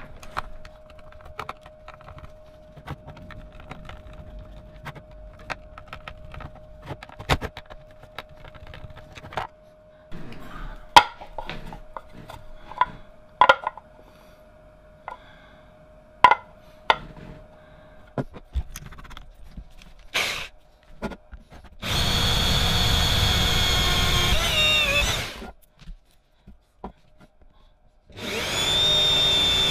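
Handheld power drill boring into a black plastic electrical box, in two runs of a few seconds each: the first about two-thirds of the way in, winding down in pitch as it stops, the second near the end. Before that, scattered light clicks and knocks of parts being handled.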